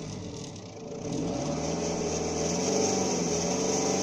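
Citroën Xantia 2.0 HDi four-cylinder turbodiesel heard at the exhaust, revved up from idle about a second in and held at higher revs.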